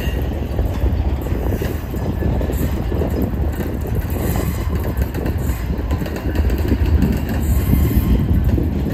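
Flatcars of a freight train carrying track-maintenance machines rolling past close by: a steady rumble of steel wheels on the rails.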